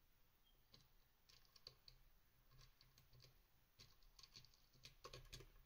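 Faint, scattered small clicks and taps from a disc detainer lock and its pick being handled, growing more frequent near the end.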